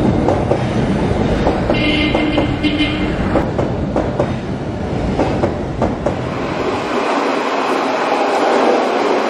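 Train running on rails, a steady rumble with wheels clicking over the rail joints and a brief high squeal about two seconds in.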